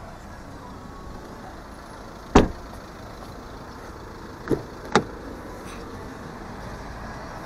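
Car doors of a Fiat 500L: one loud thump about two seconds in as a door is shut, then two quick clicks about two seconds later as the front door handle is pulled and the latch releases to open the door.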